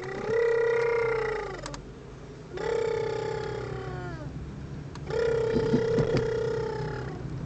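Baby crying: three long, drawn-out wails of about two seconds each, the second sliding down in pitch as it ends, over a low steady hum.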